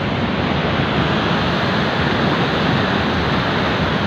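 Fast-flowing river water rushing steadily in a loud, even wash of noise.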